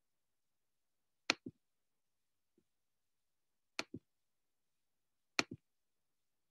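Three sharp double clicks, about two and a half seconds apart, each pair a quick click-click, in a quiet room.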